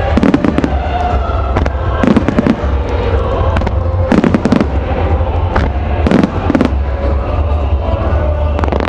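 Aerial firework shells bursting in a rapid series of bangs, the heaviest about every two seconds, over music played for the show.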